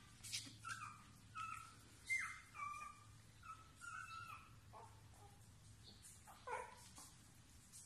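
Beagle puppies whimpering: about ten faint, short, high-pitched squeaks and whines, some falling in pitch, spread through the few seconds.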